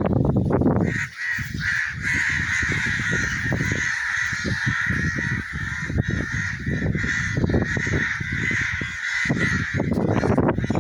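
A large flock of birds calling all at once, a dense continuous chatter from about a second in until near the end, with irregular low rumbles underneath.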